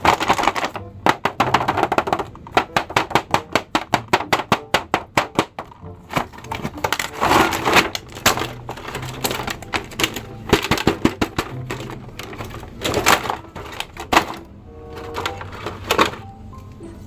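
Clear plastic blister packaging of an action-figure set crackling and crinkling as it is handled and lifted out of its box: rapid crackles, with several louder bursts.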